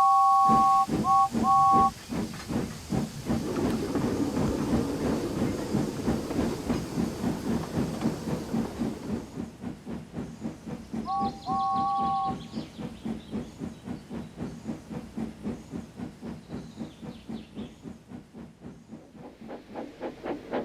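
Steam locomotive whistle sounding a two-note chord in three blasts, one long and two short, then the engine chuffing steadily as it works along. About halfway through the whistle sounds again, a short blast and a longer one, over the continuing chuff.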